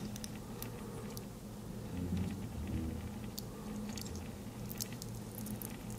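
Faint, scattered small clicks and scrapes of a pin prying at the tiny plastic and metal parts of an earbud driver, working the voice coil loose to reach its neodymium magnet.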